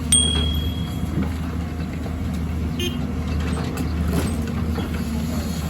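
Excavator's diesel engine running steadily. Just after the start there is a sharp metallic clink that rings for about a second.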